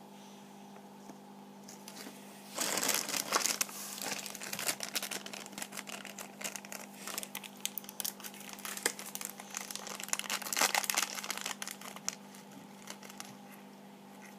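Thin plastic packaging bag crinkling as it is handled, starting about two and a half seconds in as a dense run of irregular crackles and easing off near the end.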